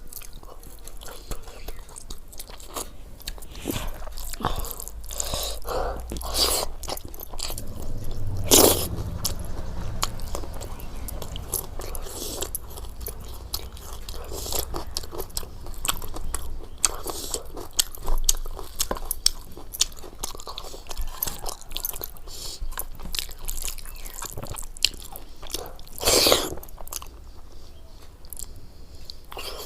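A person eating close to the microphone: steady chewing and biting with crunchy bites. Two louder bites stand out, about a third of the way in and near the end.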